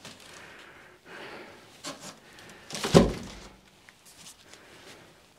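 A large cardboard drum-kit shipping box being handled, with a low rustle of cardboard, a couple of small knocks, and one loud thump about three seconds in.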